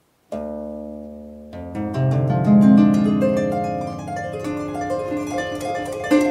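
Harp music: a chord rings out and fades, then from about a second and a half in, quick plucked notes carry a melody over held bass notes.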